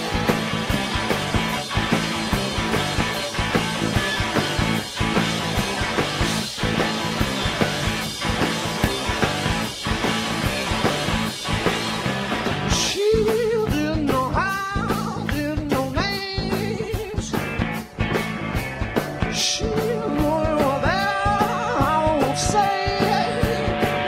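Live rock band playing: drums and electric guitars, with a singer coming in over the band about halfway through.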